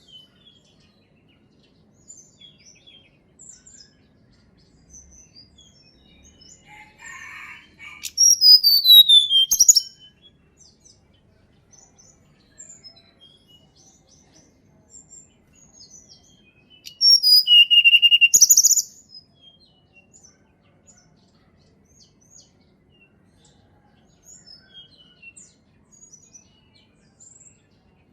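Tledekan gunung songbird singing: two loud phrases of clear whistled notes, the first gliding down in pitch, with soft high chirps scattered between them.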